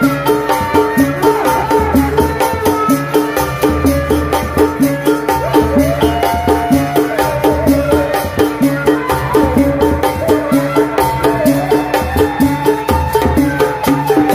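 Sundanese tanji ensemble playing: drums keep a fast, steady beat of about three to four strokes a second under a wavering melody line.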